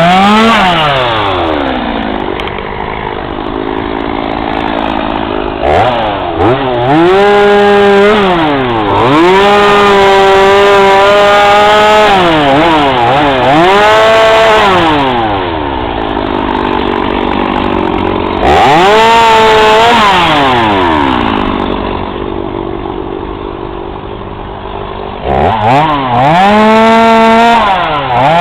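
Two-stroke chainsaw revving up to full throttle and dropping back to idle, about five times, as it cuts wood, with quieter low-revving stretches in between.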